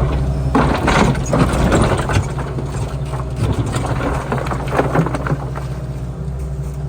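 An engine running steadily, with two stretches of scraping and clattering over it.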